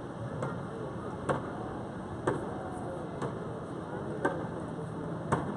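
Sharp knocks about once a second, with faint voices and steady city background noise.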